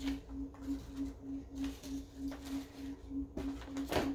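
A low hum pulsing evenly about three times a second, with a few faint knocks and rustles of things being handled, the clearest near the end.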